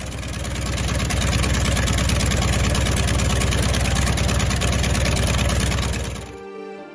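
The nine-cylinder Wright R-1820-86B Cyclone radial engine of a T-28 Trojan running steadily just after start-up, growing louder about a second in. It cuts off sharply near the end, giving way to soft music.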